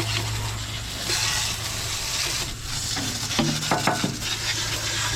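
Water from a garden hose spraying against the hydraulic pumps and engine compartment of a Cat 953C track loader: a steady hiss and spatter, with a steady low hum underneath.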